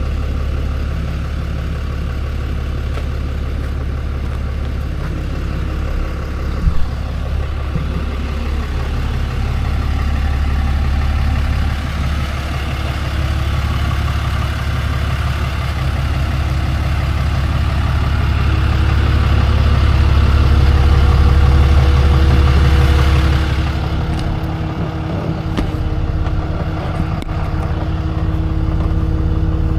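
Tow truck engine running while driving down the road, a steady low drone that builds gradually and then eases off about 23 seconds in.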